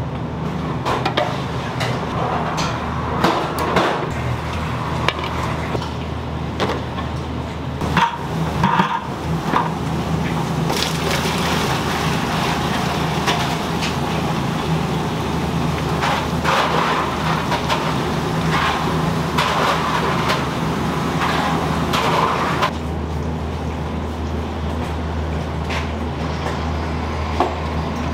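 A steady low mechanical hum with scattered knocks and clatter over it; a little over twenty seconds in the clatter stops and the hum becomes deeper and stronger.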